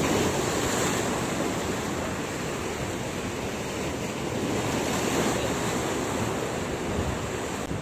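Sea surf washing in and breaking over shoreline boulders: a continuous rush of water that swells at the start and again about five seconds in.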